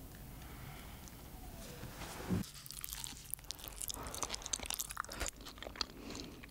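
Bites into and chewing of a crispy grated-cabbage dish, close to the microphone. After a quieter start there is a knock about two seconds in, then a dense run of sharp crunches.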